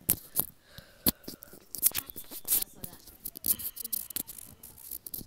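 Close-miked ASMR trigger sounds: an irregular run of sharp clicks and wet pops, roughly one or two a second, some in quick pairs.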